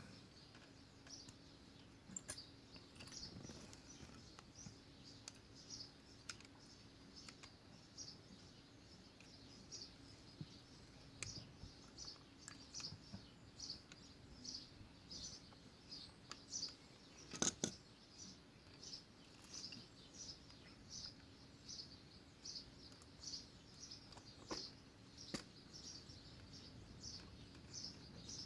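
Faint bird chirping: short high calls repeated one to two times a second, with a few scattered sharp clicks, the loudest about two-thirds of the way through.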